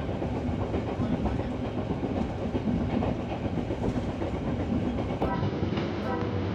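Inside a moving passenger train carriage: steady rumbling and rattling on a rocky stretch of track. About five seconds in, background music comes in.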